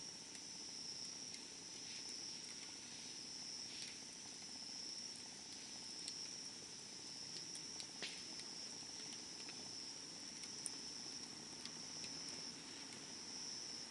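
Wood campfire burning with scattered small crackles and pops, one sharper pop about 8 seconds in, over a steady high-pitched insect chirr.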